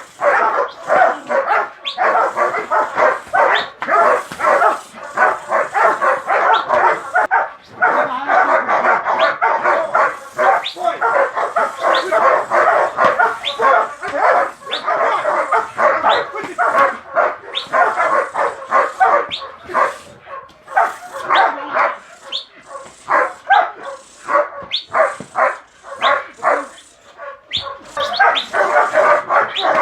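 Dogs barking continuously, the barks fast and overlapping with no real pause.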